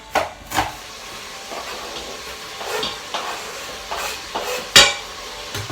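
Chicken and chorizo sizzling in the Instant Pot under its lid, a steady hiss, with a few sharp knife knocks on a chopping board as onion is cut.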